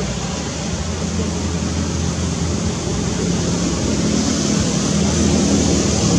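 A steady low engine drone under a broad rushing noise, growing slightly louder near the end.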